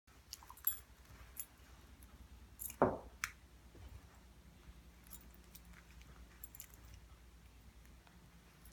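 A pit bull and a Cavalier King Charles spaniel mouthing and tugging at a plush toy: quiet chewing and rustling with scattered small clicks, and one louder knock about three seconds in.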